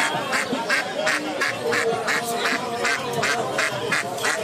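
Domestic mallard-type ducks quacking in a quick, evenly repeated series of harsh calls, about three a second.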